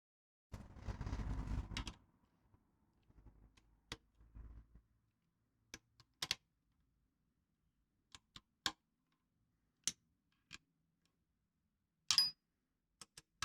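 Scattered sharp clicks and taps, as of hand tools and metal engine parts being handled during engine assembly, after a brief rustling scrape about half a second in.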